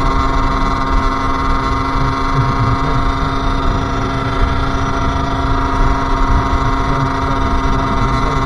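Sherco SM-R 50's 50cc two-stroke engine running at a steady speed while riding, its note holding one pitch.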